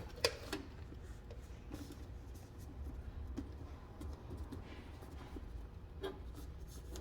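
A sharp click about a quarter second in, then a few faint scattered clicks and light rustling of small parts being handled, over a low steady hum.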